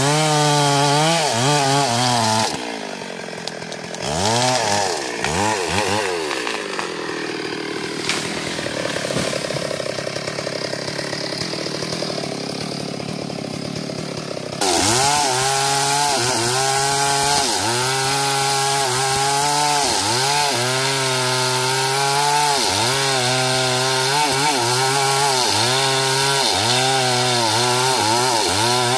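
Stihl MS 382 two-stroke chainsaw cutting at full throttle for the first couple of seconds, then dropping to a lower, uneven speed with two quick revs. About halfway through it goes back to full throttle and cuts through a mahogany trunk, the engine note dipping and recovering over and over as the chain bites into the wood.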